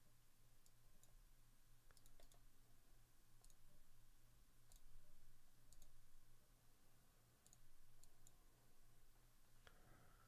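Faint computer mouse clicks, about a dozen scattered irregularly, some in quick pairs, over a low steady hum.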